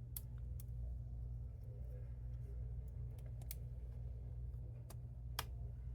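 A handful of light, sharp clicks and ticks from small laptop parts and tape being handled, the loudest about five and a half seconds in, over a steady low hum.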